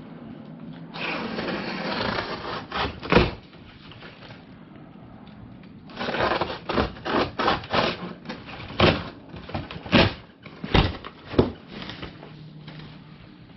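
Hands-on work around a steel tool cabinet: two spells of rough scraping and rustling, each followed by a run of sharp knocks and clacks, about a dozen in all.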